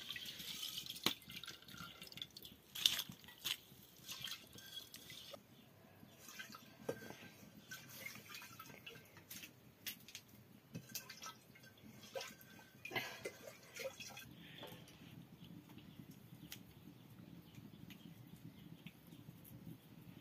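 Rice being rinsed by hand in water in an aluminium pot: water sloshing and dripping, with scattered clinks of metal pots and lids.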